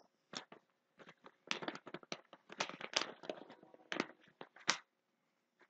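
Paper sheets handled by hand, rustling and crackling in a string of short, irregular crinkles, a little louder near the end.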